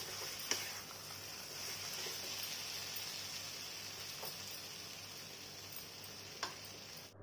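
Silicone spatula pressing and scraping a thick date-barfi mixture in a non-stick pan, over a faint steady hiss of the pan, with a few soft clicks of the spatula against the pan.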